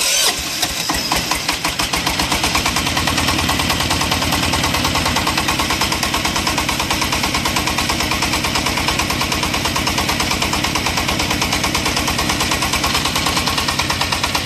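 Small single-cylinder diesel engine of a portable water well drilling rig, just started on its electric starter. It runs at a steady speed with a fast, even beat of firing pulses.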